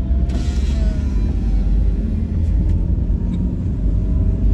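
Steady low rumble of a vehicle travelling along a concrete highway: tyre and wind noise, with a brief rush of hiss about half a second in.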